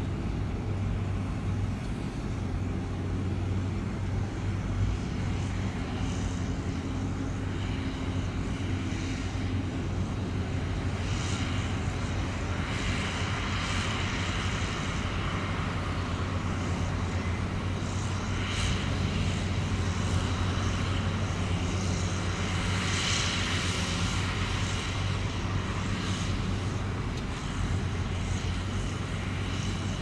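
Dump truck's diesel engine running steadily to drive the hydraulic hoist as the bed tips and the soil load slides out, with a deep drone and a few brief hissing rushes in the second half.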